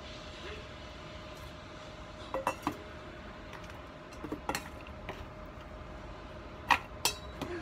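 A kitchen knife cutting corn kernels off the cob and scraping them on a wooden cutting board, with the odd clink against a stainless steel bowl. The knocks and clinks come in small clusters, and the two sharpest fall near the end.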